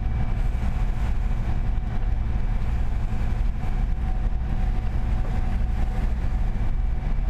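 Fishing boat's engine running steadily while underway, heard from inside the galley as a constant low drone with a faint steady whine above it.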